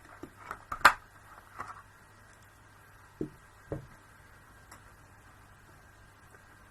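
A sharp click about a second in, with lighter ticks around it, then two soft knocks a few seconds later: card stock being punched with a craft paper punch and the punch handled on the craft table.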